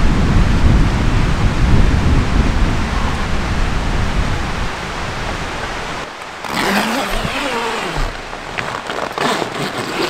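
Strong wind gusting against the tent and the microphone with a deep rumble. About six seconds in this changes to the crackling and crinkling of a clear plastic vinyl sheet being pulled and handled.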